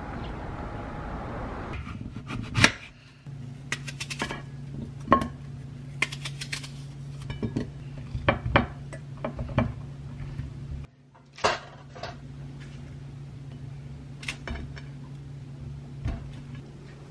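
Fruit pieces and a ceramic plate handled on a kitchen countertop: scattered clinks, taps and knocks with a sharp knock a few seconds in, over a steady low hum. The first couple of seconds hold only a soft rushing noise.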